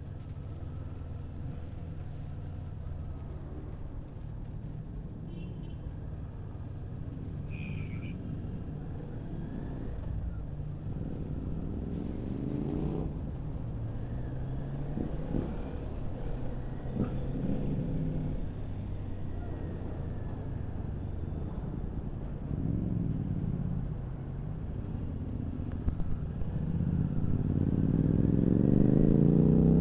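Motorcycle engine under way, its pitch rising and falling as the rider opens and closes the throttle, over a steady low rumble. It revs up hardest and is loudest near the end.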